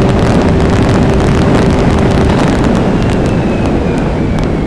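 Ski-Doo Mach Z's turbocharged 900 ACE three-cylinder four-stroke snowmobile engine, fitted with an aftermarket tune and downpipe, running hard at speed with wind rushing over the microphone. The drive holds steady at first, then a faint falling whine comes in about three seconds in as the sound eases off a little near the end.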